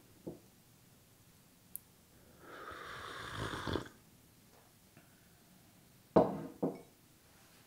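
Glass coffee mug lifted off a wooden countertop with a light knock, then a slurping sip of coffee lasting about a second, then the mug set back down on the wood with two sharp knocks near the end.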